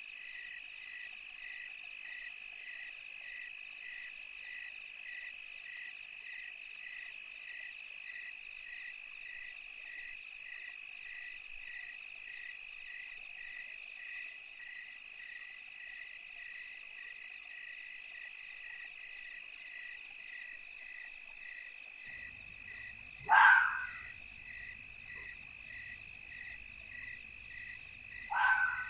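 Night ambience of insects chirping in a steady pulsing rhythm, about two chirps a second. Two short, louder calls falling in pitch stand out near the end.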